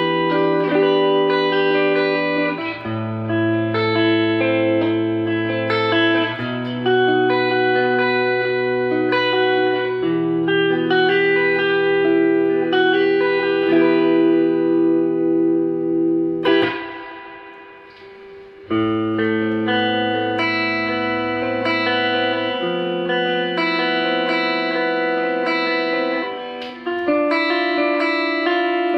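Fujigen J-Standard Mustang electric guitar played through a Fender amplifier: picked chords that change every second or two, the notes left to ring together. About two-thirds of the way through the playing stops and the sound dies away for a moment before the chords resume.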